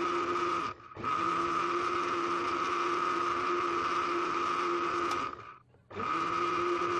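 Electric countertop blender motor running at speed, blending milk and ice cream into a frothy milkshake. It stops briefly about a second in and again for about half a second shortly before the end, starting up again each time, as the blender is pulsed.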